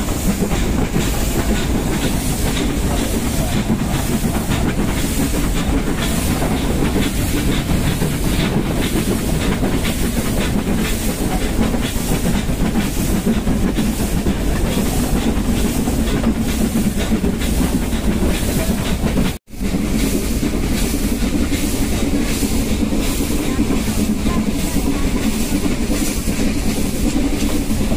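Nilgiri Mountain Railway train running slowly up the steep ghat grade, its carriage wheels clicking regularly on the rails under steady rumbling noise, heard from a phone held out of the carriage window. The sound drops out for an instant about two-thirds of the way through.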